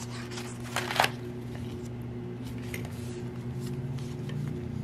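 Paper planner pages being turned and handled in a ring binder, with two brief crisp rustles about a second in, over a steady low hum.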